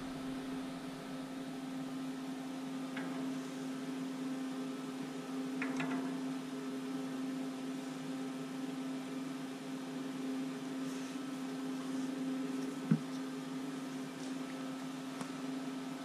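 Steady low electrical hum of the shop, with a few faint clicks of hand tools on the steering linkage and one sharper click about 13 seconds in.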